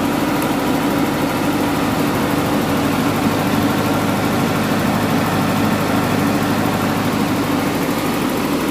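Open-frame 30 kVA diesel generator with a four-cylinder engine, running steadily without a sound-deadening canopy.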